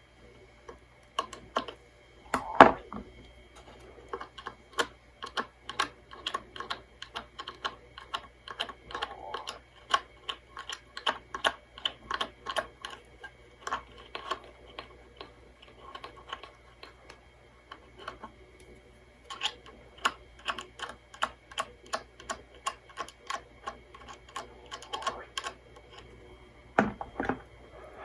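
Small hard clicks and taps, two to three a second with short pauses, of a screwdriver and fingers working at the screws and chassis of a 1970s Crown jewel box AM radio. There is a louder knock about two and a half seconds in and another near the end.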